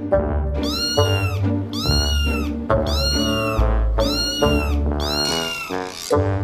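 A cat meowing four times in a row, about a second apart, each meow rising and then falling in pitch, over background music with a deep bass line.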